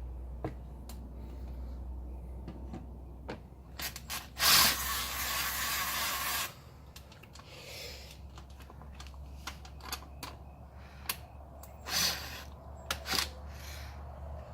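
Oil being poured from a plastic container through a funnel into a Yamaha Blaster ATV's engine, with scattered clicks and taps of the container and funnel being handled. About four and a half seconds in comes a two-second rush of noise.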